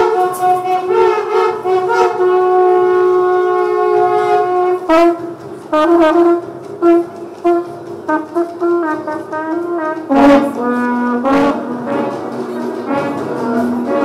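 Horns playing long held notes, broken about five seconds in by a run of short repeated notes, then held notes again at a lower pitch.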